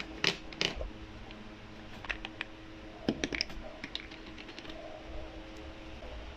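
Scattered light clicks and taps of paint containers and a mixing cup being handled while reducer is added to the paint, in small clusters, over a faint steady hum.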